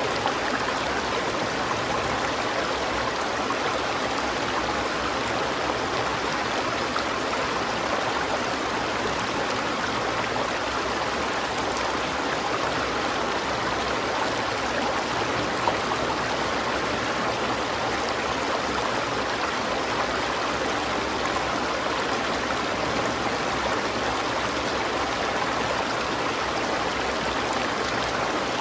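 River water flowing and burbling in a steady, unbroken rush.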